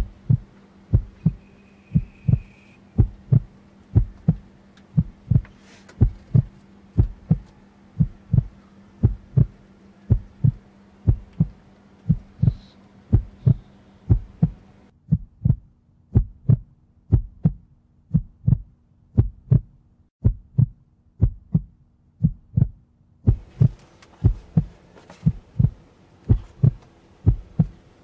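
Heartbeat sound effect: low double thumps (lub-dub) about once a second, steady throughout. Under it runs a low hum, which drops away for several seconds midway.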